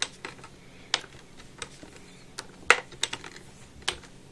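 Power cord of a 1967 Hoover Junior upright vacuum clacking against the metal cord hooks on its handle as the cord is wound on: a handful of sharp, irregular clicks and knocks, the loudest about two thirds of the way in.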